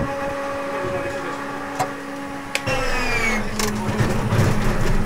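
Antonov An-2 engine start: the inertia starter runs with a steady whine, then after a click about two and a half seconds in it is engaged, its whine falls away and the Shvetsov ASh-62 nine-cylinder radial engine turns over with a low rumble that grows louder near the end.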